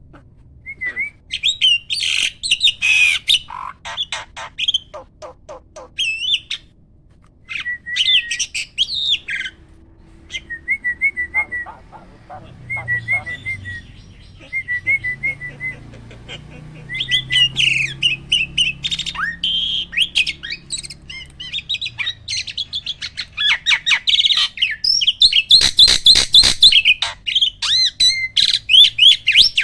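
A starling (jalak) singing a loud, varied song of chirps, whistles and harsh notes, with a run of short repeated wavy notes in the middle and fast, crowded phrases near the end.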